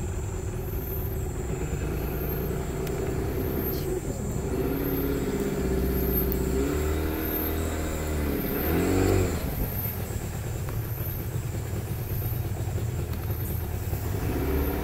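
Outboard motor of a motorized dugout canoe running steadily, its pitch rising and falling a few times around the middle. Over it, a high chirp repeats evenly about once a second, alternating between two pitches.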